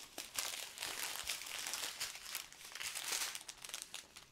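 Small plastic bags of diamond-painting drills crinkling as they are handled, a dense run of rustles and small clicks that eases off near the end.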